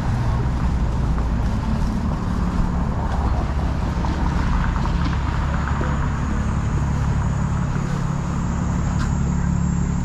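Street traffic: a steady low engine rumble from vehicles on the road.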